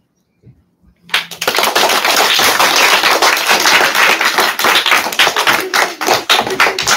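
Applause from a small audience: many hands clapping, starting about a second in.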